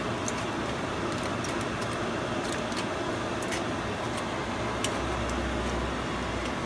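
Steady fan-like noise, with faint crinkling of aluminium foil as hands press ground-meat stuffing onto a mushroom cap.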